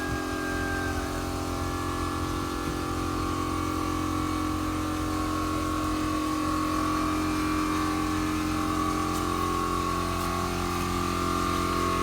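A motor running steadily at an even pitch, with no change in speed.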